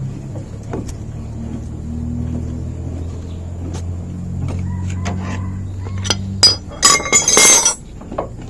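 Car jack being wound down with its handle over a steady low rumble, with a burst of loud metal clanking and clinking near the end.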